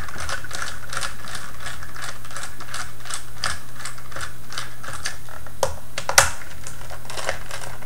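Screwdriver backing Phillips screws out of the plastic chassis of a Parallax Scribbler 2 robot: a run of small, fairly regular clicks, about three or four a second, with a couple of sharper clicks about six seconds in.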